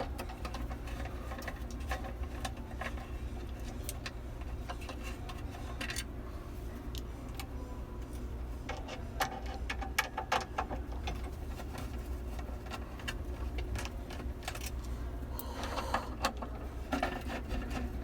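Scattered small clicks and metallic taps of hands working screws and parts on a crane-game claw assembly, over a steady low hum.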